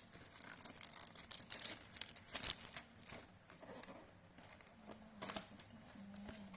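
Packaging being handled and opened: irregular crinkling and rustling with small tearing sounds.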